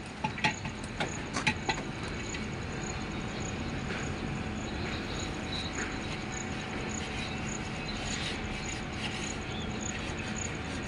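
Heavy diesel engine running steadily, with a few sharp metallic knocks in the first two seconds.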